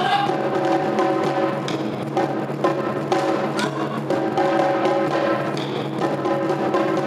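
Ensemble of Japanese taiko drums, barrel-shaped drums on slanted stands, struck with wooden sticks in a steady rhythm. Held melodic notes that change about every second sound alongside the drums.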